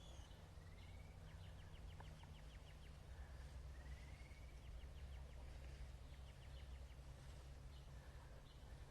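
Faint birdsong: small birds giving rapid trills of short repeated notes and a few rising whistled notes, several times over, above a low steady rumble.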